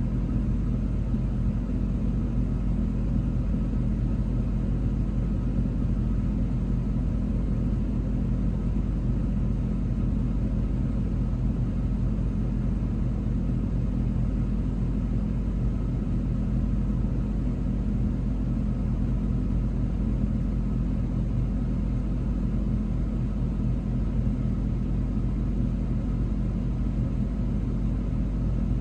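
Train running steadily: a continuous low rumble with a steady engine hum, unchanging throughout.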